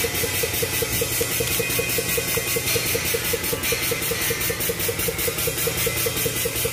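An engine or motor running steadily, with an even pulse of about five beats a second.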